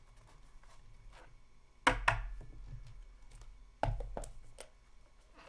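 Hands handling a small trading-card box and a hard plastic card holder, giving a few sharp clacks and knocks. The loudest pair comes about two seconds in, and another cluster of three comes near four seconds.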